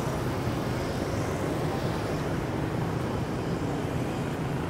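Steady street traffic noise, with engines running at an even level and no single vehicle standing out.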